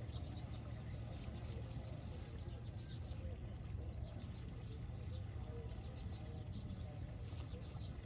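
Small birds chirping and twittering busily, many short high calls overlapping, over a steady low rumble.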